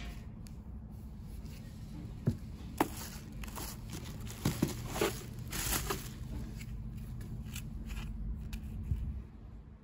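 Clear plastic packing wrap crinkling and a cardboard box rustling while a boxed battery is unpacked by hand, with a few sharp knocks and clicks in the middle of the stretch, over a steady low background rumble.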